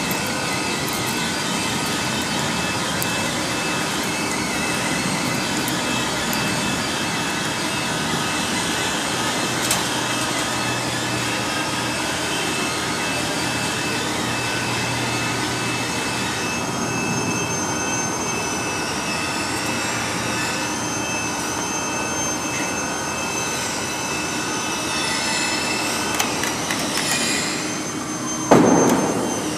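Steady whirring hum of an industrial guillotine paper cutter running, with a faint high whine joining about halfway through. A sudden loud thump comes about a second before the end.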